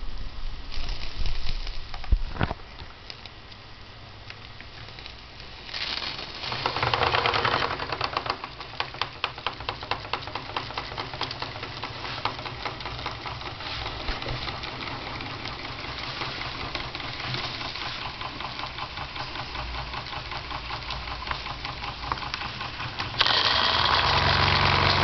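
Wilesco D49 twin-cylinder double-acting model marine steam engine running, its exhaust beats coming in strongly about six seconds in, then settling into a rapid, even chuffing rhythm. A louder steady rushing noise cuts in suddenly near the end.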